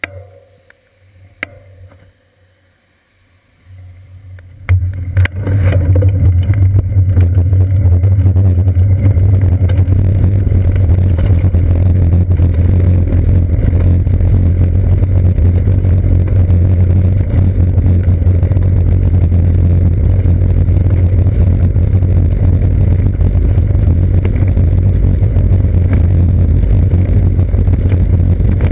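Bicycle rolling over a wet brick street, heard through a seat-post-mounted GoPro Hero 2 as a loud, steady rumble and rattle that sets in about five seconds in, after a few faint clicks on smoother pavement.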